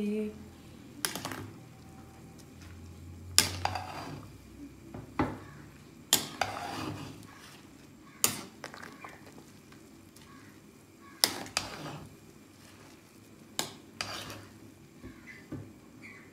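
A metal ladle stirs jhyau (edible lichen) and buffalo meat in a large aluminium pot, knocking and scraping against the pot in about ten sharp clanks spaced irregularly, over a faint sizzle of the cooking.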